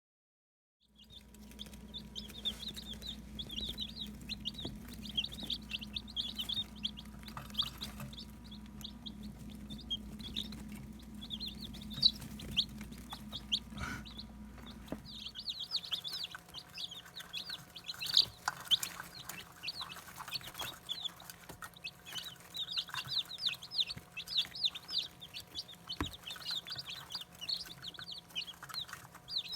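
Brooder of day-old Barred Rock and Cinnamon Queen chicks peeping nonstop, many short high cheeps overlapping, starting about a second in. A low steady hum underneath stops about halfway through.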